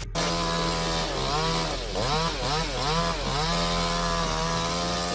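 Chainsaw running at high revs, its pitch dipping and recovering several times in the middle as it loads up in the cut, then holding steady.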